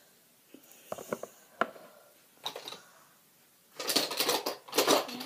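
A few light clicks and clinks of nail-polish bottles and caps being handled. From about four seconds in comes a denser, louder rustling clatter of things being rummaged through.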